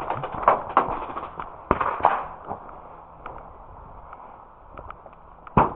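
Airsoft guns firing: a quick, irregular string of sharp pops over the first two seconds, then scattered faint ticks, and one louder pop near the end.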